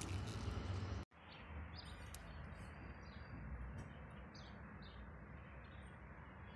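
Small birds chirping now and then over a steady background hiss, with a brief dropout about a second in.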